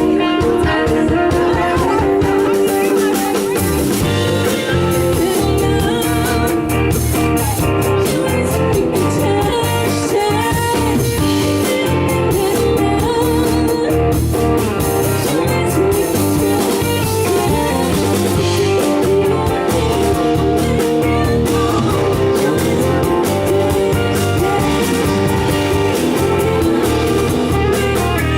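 Live rock band playing a blues-rock song with guitar, bass and drums, the bass and drum beat entering about three and a half seconds in, during a sound check.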